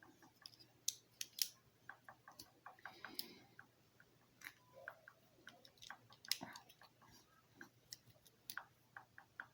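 Faint, irregular small clicks and taps of hands handling LEGO pieces and a sticker sheet, with a brief rustle about three seconds in.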